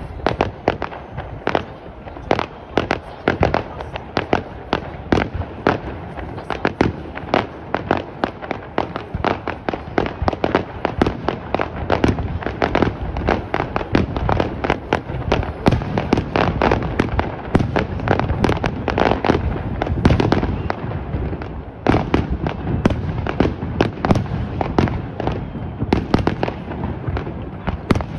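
Fireworks display: a dense, unbroken string of bangs and crackles, several a second, with a short lull about three-quarters of the way through.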